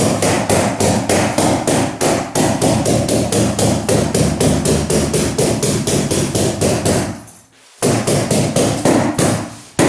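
Staple gun firing rapidly, about four to five shots a second, stapling carpet pad down, with a short break about seven seconds in before the shots resume.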